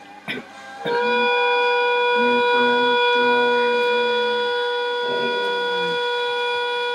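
Stovetop kettle whistling steadily at the boil, starting about a second in. Under the whistle, a Border Collie's low wavering howls come and go, one sliding down in pitch near the end.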